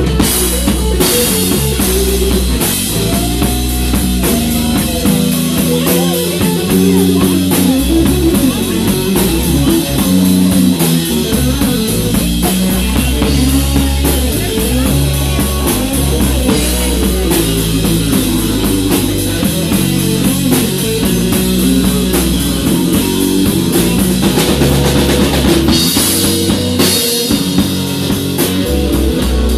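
Live blues-rock trio of electric guitar, bass guitar and drum kit playing a slow blues without vocals, the guitar playing lead lines with bent notes over the drums and bass. Cymbal crashes ring out near the start and again near the end.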